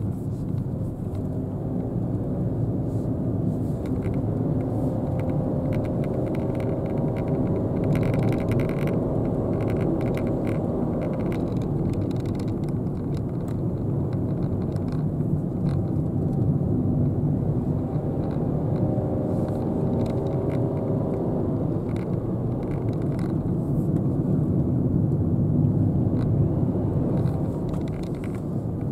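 Interior noise of a Nissan Dayz with its 660 cc turbocharged three-cylinder, driving: a steady engine and tyre drone, with the engine note rising in pitch twice as the car accelerates, first about five seconds in and again near twenty seconds.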